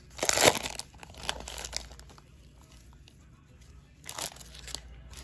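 Plastic cello trading-card pack wrapper being torn open and crinkled, loudest in the first second, with smaller crinkles after and another burst of rustling about four seconds in.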